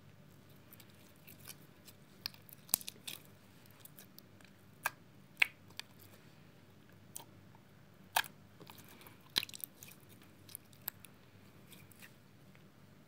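Slime being squeezed and kneaded by hand, giving irregular sharp pops and clicks, about a dozen in all, with faint squishing between them.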